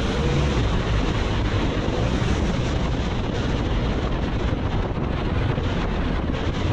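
Steady wind rushing over the microphone of a moving BMW R nineT motorcycle, with the bike's engine and road noise underneath.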